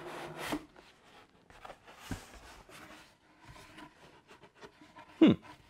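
Lid of a cardboard box slid and lifted off, with rustling and handling of the cardboard packaging and a single knock about two seconds in. A brief, loud falling vocal sound comes near the end.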